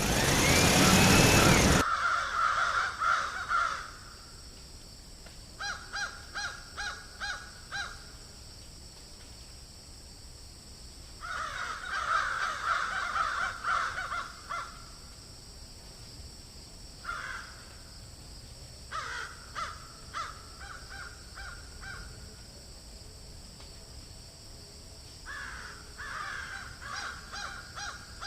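A loud burst of noise for the first two seconds, then harsh bird calls repeated in several series of quick pulses, with pauses between the series. A faint steady high hiss runs underneath.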